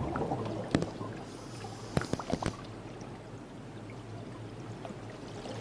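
Water bubbling and pouring, as heard underwater, with a sharp click about a second in and a quick cluster of clicks around two seconds in.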